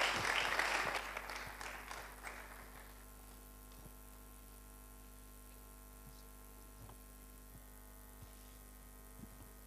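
Congregation applause dying away over the first three seconds, leaving a steady, faint electrical hum.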